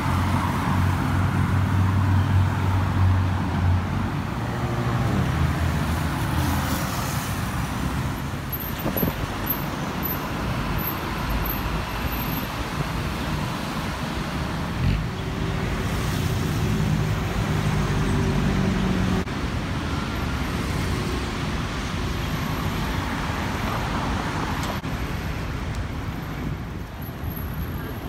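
City road traffic: a steady noise of passing cars and buses, with a large engine's hum during the first few seconds and again about two-thirds of the way through.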